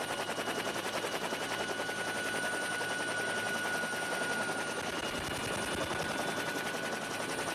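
Steady mechanical engine drone with a fast, even pulsing and a faint steady high whine over it.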